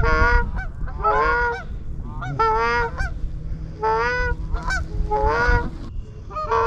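Canada geese honking close by: a run of loud, separate honks, about one a second, each rising and then falling in pitch.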